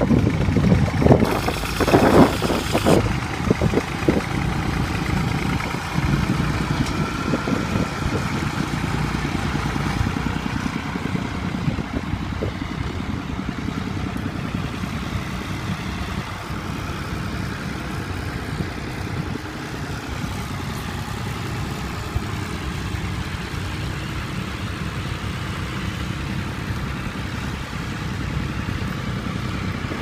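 Vintage tractor engine running steadily as it pulls a plough through the soil, easing slightly as it moves away, with wind buffeting the microphone in the first few seconds.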